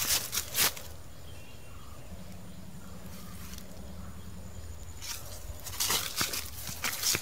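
Footsteps crunching and rustling through grass and dry leaves: a few sharp crunches in the first second, a quieter stretch, then more crunching steps in the last two seconds.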